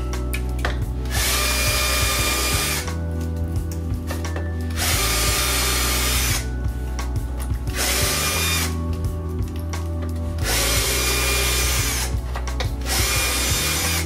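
Cordless drill drilling out plastic rivets in a washing machine door frame, running in short runs of a second or two that stop and start several times.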